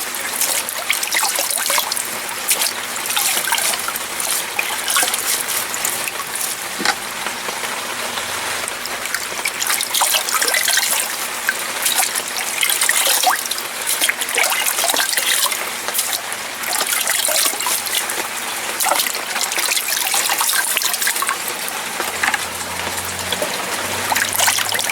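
Water spilling from a homemade coffee-can solids filter as a small waterfall, trickling and splashing steadily.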